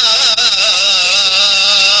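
A man singing an Iraqi Turkmen folk song, holding one long, wavering melismatic note.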